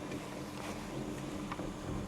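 Steady low mechanical hum with an even wash of wind while riding a chairlift.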